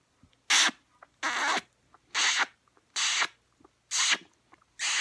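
Close, noisy breathing: short breaths or sniffs at a steady pace of about one a second.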